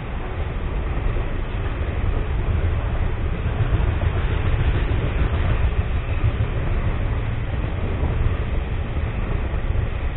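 Freight train's container wagons rolling past on the rails: a steady rumble of wheels and wagons.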